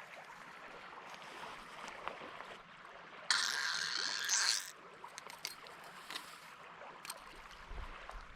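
Faint running stream water, with a sudden louder rush of water lasting about a second and a half a little past the middle.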